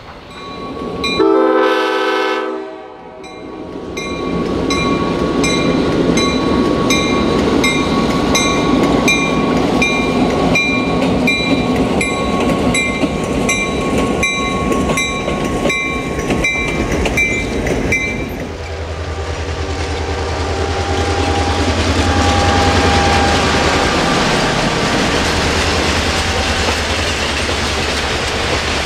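A train horn blows one short blast, then a passing train's wheels clack over the rail joints in a steady rhythm, with a high ringing tone over them. About eighteen seconds in the sound changes to a steady deep rumble.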